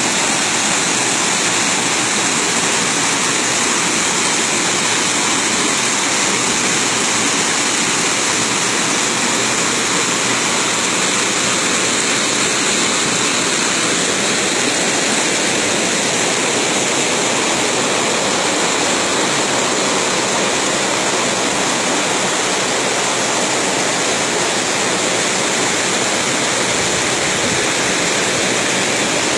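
Spring water gushing out of a rock opening and rushing over rocks as whitewater: a loud, steady rushing.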